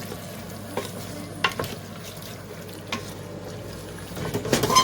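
Chicken and curry sauce frying in a pan, with a steady sizzle. A few clicks of a utensil against the pan come through, then a louder burst of stirring near the end.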